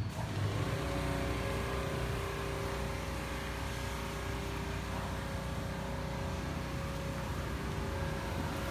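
Steady engine hum with a low rumble and several held tones that come in just after the start.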